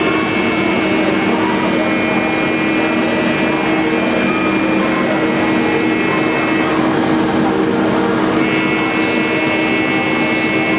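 CNC lathe turning hardened forged steel with a CBN insert: a steady machine hum under a high whine. The whine breaks off a little under seven seconds in and comes back about a second and a half later.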